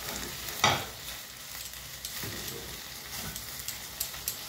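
A spatula stirring and scraping a thick prawn and ginger paste around a non-stick frying pan, over a steady low sizzle of frying. A sharper scrape about half a second in is the loudest sound, with a few softer scrapes after it.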